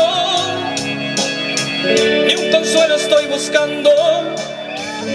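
Live band playing an instrumental passage of a romantic Latin ballad between sung lines: sustained chords under a steady drum beat, with a held wavering note near the start.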